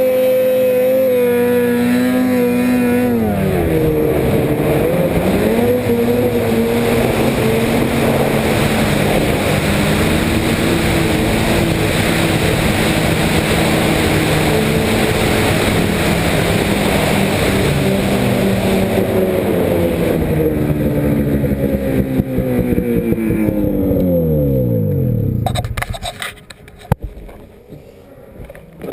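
Snowmobile engine running hard at high revs: the pitch dips briefly a few seconds in, climbs back and holds, then the revs fall away and the engine sound drops off near the end. A sharp knock is heard just after it dies down.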